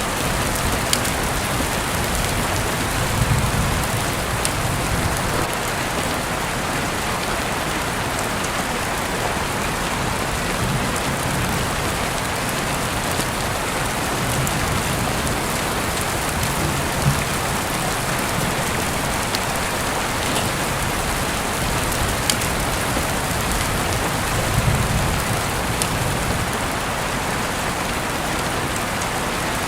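Steady heavy rain falling, a dense even hiss with scattered sharp ticks and a few brief soft low rumbles.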